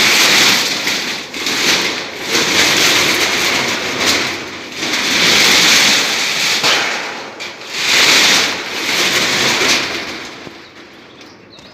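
Electric arc welding crackling and sputtering in several runs of a few seconds each, with short breaks between them.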